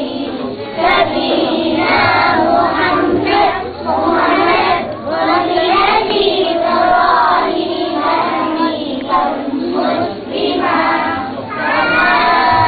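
A group of young children singing together in unison, without a break.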